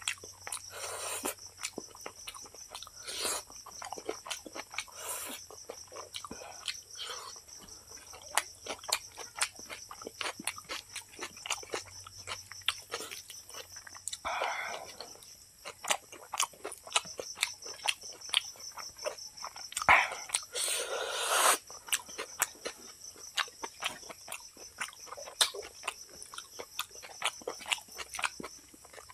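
Close-miked mouth sounds of a person chewing a mouthful of rice and pork curry: many short wet clicks and smacks, with a few louder, longer chewing stretches about halfway and about two-thirds of the way in. A steady high-pitched tone runs underneath.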